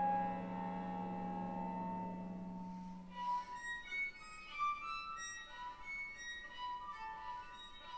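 A chamber ensemble with a solo violin playing contemporary classical music. A sustained chord over a low held note fades out about three seconds in, leaving sparse, short high notes.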